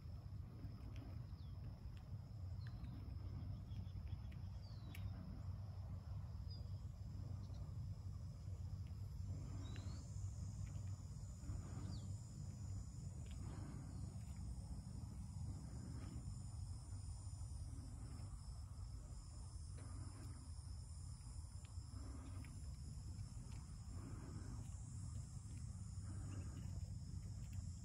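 Quiet outdoor ambience: insects droning steadily at a high pitch, a few faint bird chirps, and a low steady rumble.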